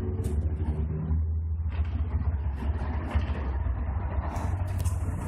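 Industrial vacuum cleaner running steadily with a low, even hum.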